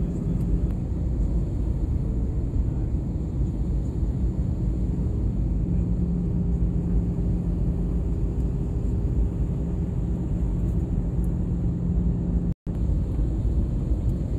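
Jet airliner cabin noise on approach to landing: a steady low rumble of engines and airflow with a constant hum underneath. The sound cuts out for a split second near the end.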